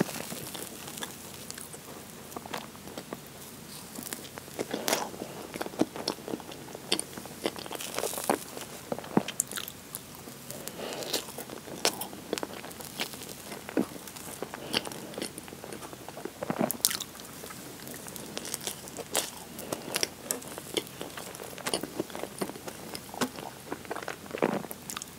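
Close-miked eating of strawberry cream sponge cake: soft chewing and wet mouth sounds, broken by many short sharp clicks and smacks at irregular intervals.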